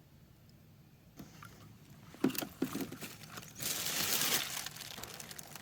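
Kayak being handled in the water: a few hollow knocks against the hull, then a steady rushing splash of water.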